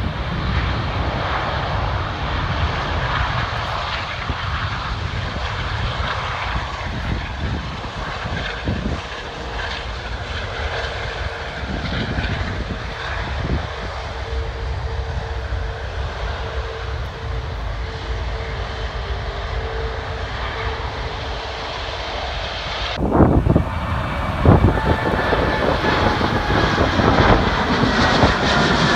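Low, steady jet rumble from a taxiing Airbus A380, mixed with passing road traffic and a faint steady hum. Near the end it cuts to a louder jet, a Boeing 787 climbing out overhead after takeoff, with its engine whine slowly falling in pitch.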